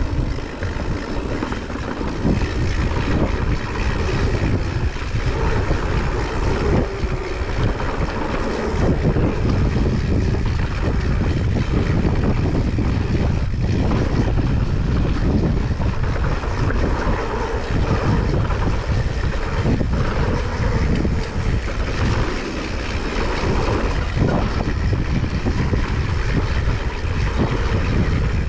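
Blizzard wind blowing hard against the microphone: a loud, continuous rush with a heavy low rumble, rising and falling in gusts.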